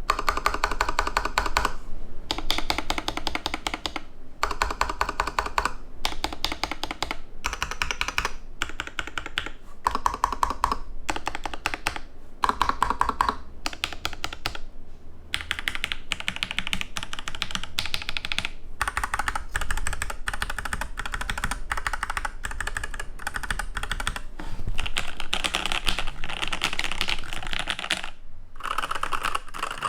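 Random keys being typed quickly on mechanical keyboards with linear switches, the Varmilo Summit 108's Sakura EC2 switches and a lubed Alpaca-switch board: dense runs of keystroke clacks in bursts of a second or two, with short pauses between them.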